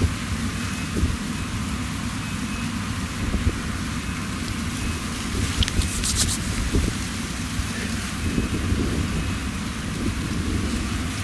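Claas Lexion 760 TT combine harvester running while unloading shelled maize through its auger into a trailer: a steady low rumble from the machine with a hiss of grain over it.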